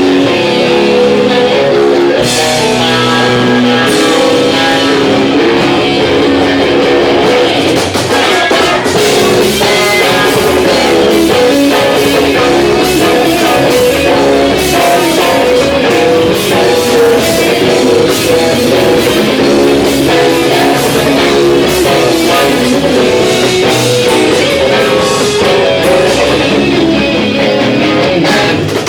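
Loud live rock band playing: electric guitars and a drum kit, with some singing.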